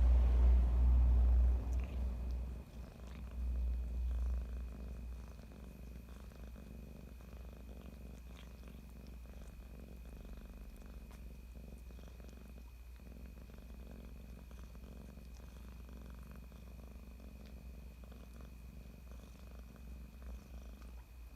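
Domestic cat purring steadily, a low pulsing rumble, louder for the first few seconds and then settling.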